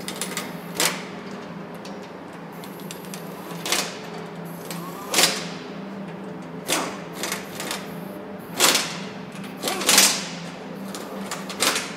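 Truck assembly-line workshop noise: a steady low hum with irregular sharp metallic clanks and clicks from tools and parts, about ten in twelve seconds, the loudest near the end.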